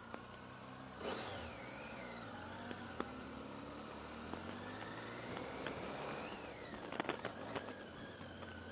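Triumph Tiger 800's three-cylinder engine pulling away from a stop and accelerating, its revs rising and then dropping at an upshift about six seconds in. A few sharp clicks come near the end.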